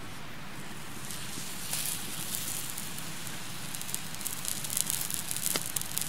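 Bacon grease sizzling under a stuffed bannock frying on a hot stone griddle: a steady hiss with fine crackling pops that get busier from about a second in.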